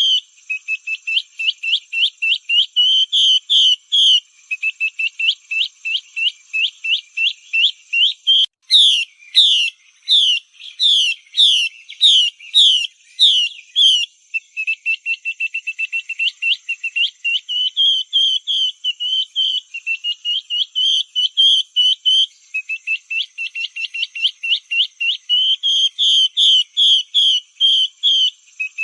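Female Chinese hwamei (melodious laughingthrush) calling, played as a lure call to draw wild hwamei: fast runs of short, high repeated notes. About a third of the way in, a slower series of louder down-slurred notes lasts some five seconds before the fast runs return.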